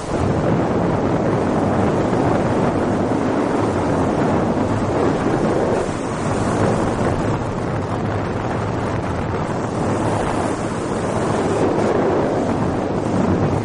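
Boat under way on the sea: heavy wind buffeting the microphone over the steady rush of water, loud enough to drown out talk.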